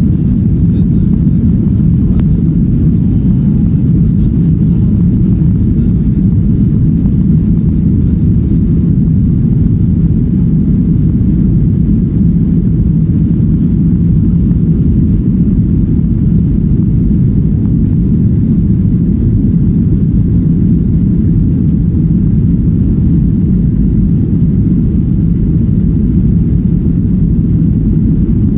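Jet airliner's engines and wheels on the runway during the take-off roll, heard from inside the passenger cabin: a steady, loud, low rumble.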